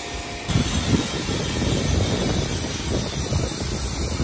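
Pressure washer spraying water onto a motorcycle to rinse off snow foam: a steady loud rush of spray that jumps up in level about half a second in and then holds.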